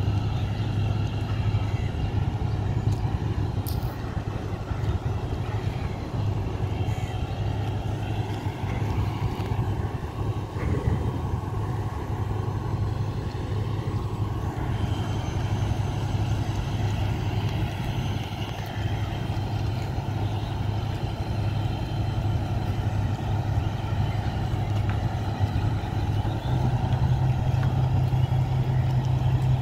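Large vehicle engine running steadily with a low hum, its note rising and getting louder about 26 seconds in.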